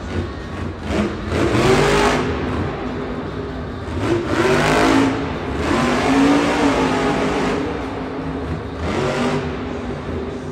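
Monster truck's supercharged V8 engine revving hard in repeated surges, pitch rising and falling as the truck drives and turns on the arena dirt.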